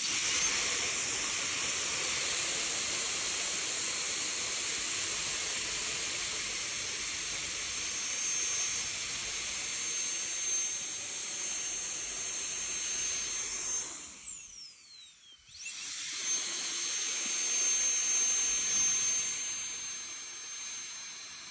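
Storm Tool USA cordless mini jet blower spinning up to a high-pitched whine with a rush of air and running steadily. About 14 seconds in it winds down with a falling whine and stops briefly, then spins up again and runs on.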